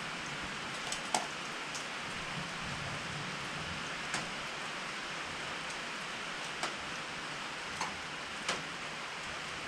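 Steady hiss of rain falling on the building, with a few faint scattered clicks and taps from small objects being handled.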